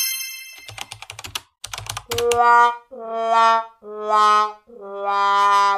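A sound-effect sequence: a short run of keyboard-typing clicks, then a sad-trombone 'wah-wah-wah-waaah' of four brass notes stepping down in pitch, the last one held long.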